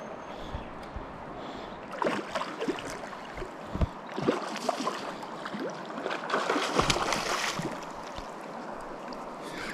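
River water running, with repeated splashing from about two seconds in. The splashing is heaviest about six to seven and a half seconds in.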